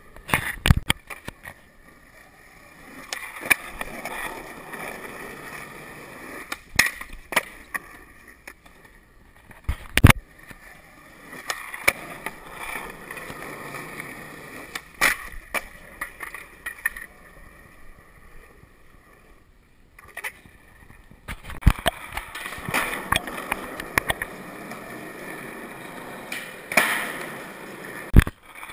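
Skateboard wheels rolling over concrete, with sharp clacks of the board hitting the ground every few seconds, the loudest about ten seconds in. The rolling stops for a couple of seconds past the middle, then resumes.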